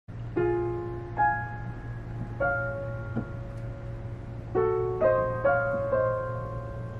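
Piano played slowly. Chords and single notes are struck one at a time, about eight in all, each left to ring and fade before the next, over a steady low hum.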